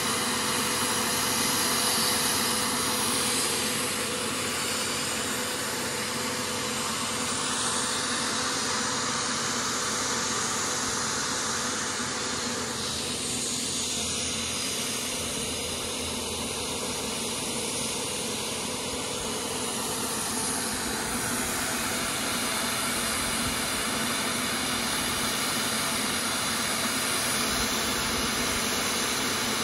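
Bosch electric paint sprayer running steadily while spraying: a continuous hiss of air and paint over a steady motor hum, with no change in speed.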